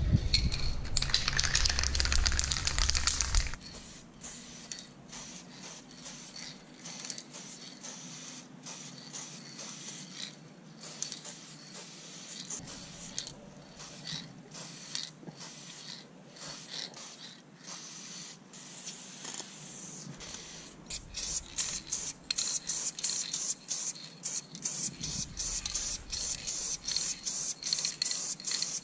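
Aerosol spray-paint can hissing against a wall in repeated bursts, starting and stopping many times, with short quick bursts near the end. It opens with a few seconds of louder handling noise.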